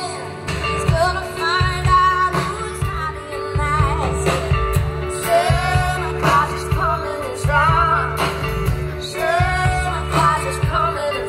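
Band music played loud through a PA, with a singer over steady bass and drums.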